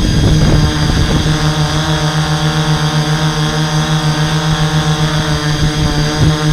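Hexacopter's six brushless motors and 11-inch propellers droning in flight, heard from a camera mounted on the craft. The low hum wavers in level several times a second, over a low rumble of wind on the microphone.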